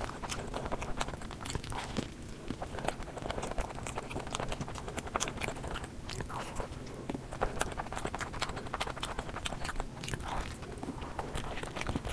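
Close-miked chewing and biting of cheesy pizza, a dense run of small mouth clicks and smacks.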